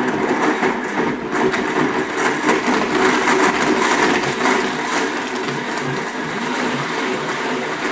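Blendtec 570 blender running its smoothie cycle, the blades crushing ice and frozen fruit with a clattering, crunching noise over the motor. About five seconds in it settles into a steadier, slightly quieter whir as the mix turns smooth.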